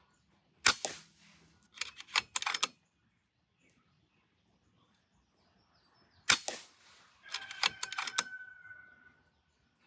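Two shots from a pre-charged pneumatic bullpup air rifle, about five and a half seconds apart. Each shot is followed about a second later by a quick run of metallic clicks as the action is cycled to chamber the next pellet. Faint bird chirps sound in the background.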